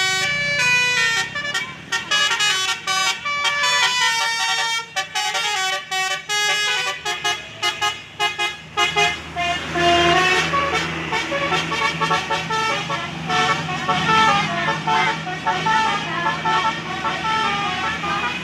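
A bus's basuri telolet horn plays a quick tune of stepped notes. It starts abruptly, and about halfway through the notes come denser and overlap.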